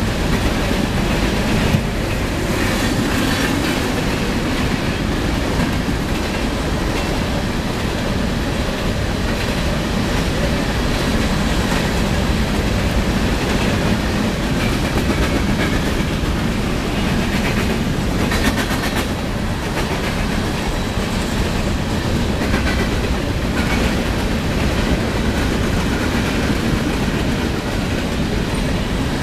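Freight train of covered grain hopper cars rolling past close by: a steady rumble of steel wheels on rail with a clickety-clack of wheels passing over the rail joints.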